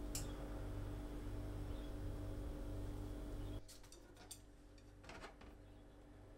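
Light clicks and taps of chopsticks against a dish, over a low steady hum that drops away about three and a half seconds in.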